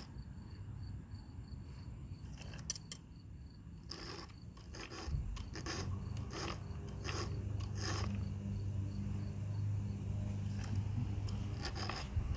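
A file rasping across the teeth of a chainsaw chain during sharpening, in short strokes at uneven spacing. A low steady hum comes in about five seconds in.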